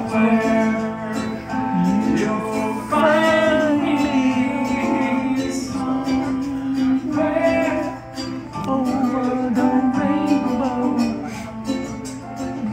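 A man singing live into a microphone while strumming an acoustic guitar.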